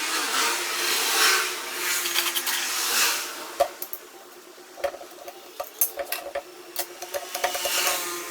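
Hissing that swells and fades for the first few seconds, then metal transmission parts clinking and tapping against each other as they are handled, some knocks ringing briefly.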